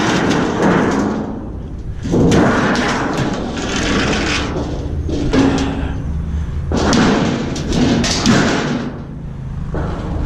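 Scrap metal clattering and banging in four long rattling bursts as pieces are tossed onto a pile or into a truck bed, over a steady low hum.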